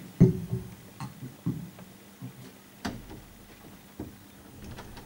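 A few scattered knocks and clicks, the loudest a sharp thump just after the start, then softer ones roughly every second.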